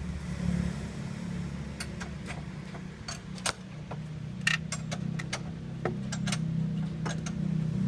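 Peugeot 406 engine running at a steady idle, with irregular sharp clicks and ticks over the low hum.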